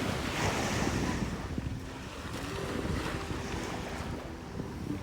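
Small waves washing in on a sandy beach, swelling twice, with wind buffeting the microphone.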